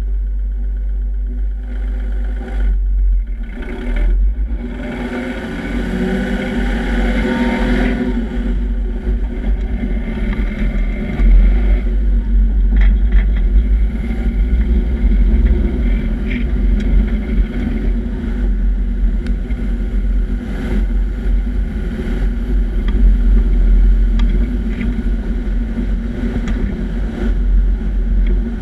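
Nissan Patrol Y60 driving on a dirt road, heard from under the chassis: the engine pulls away with a rising pitch about five to eight seconds in, then a steady loud road rumble of tyres on dirt with heavy wind buffeting on the microphone. A few sharp ticks stand out in the rumble.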